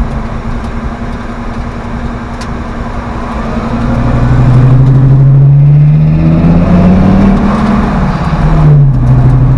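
Ford Triton 6.8-litre V10 in a 1970 Ford F100, running through a 2.5-inch X-pipe exhaust, pulling under acceleration. The engine note climbs steadily for about four seconds from partway in, then drops sharply near the end and settles.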